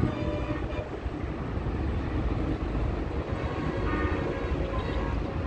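Steady low rumble of motor traffic on a main road.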